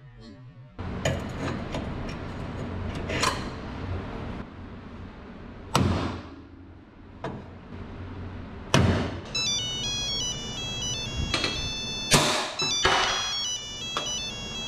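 Several sharp knocks, each ringing briefly, over a steady background noise. About nine seconds in, a high electronic melody of stepping tones starts and runs on, like a phone ringtone.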